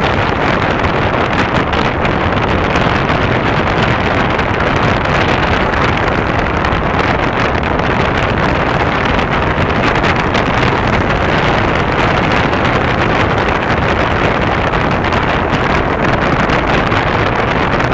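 Steady, even rushing noise of wind on the microphone, with no bursts or bangs standing out.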